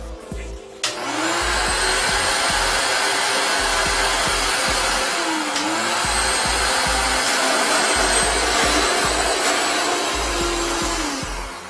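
A wet/dry vacuum switches on with a click about a second in and runs steadily, sucking water out of a clogged toilet bowl through its hose. Its whine dips in pitch briefly a couple of times, and it winds down near the end.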